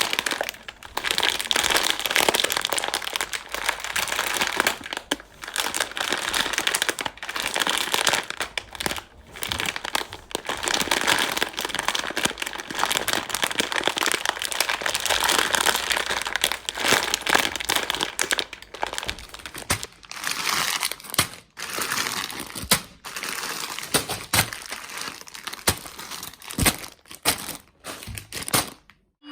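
Plastic sweet packets crinkling and rustling as Haribo gummy sweets are handled and tipped out. Sharper separate clicks and taps come in the last third.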